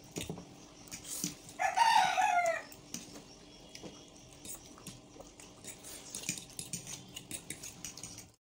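A single loud call about a second long, nearly two seconds in, its pitch falling at the end. Around it come small clicks of forks against plates as noodles are eaten.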